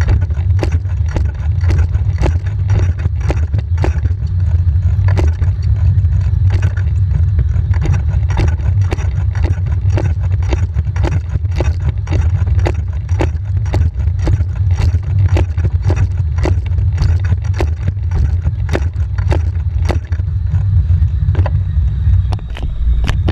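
Racing wheelchair spinning on a training roller: a steady low rumble from the wheels and roller, with a sharp slap about twice a second as the gloved hands strike the push rims on each stroke.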